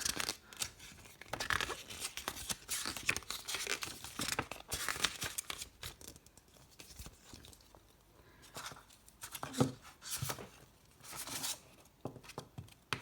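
Paper rustling and crinkling in irregular short bursts as a comic booklet's pages are flipped and handled.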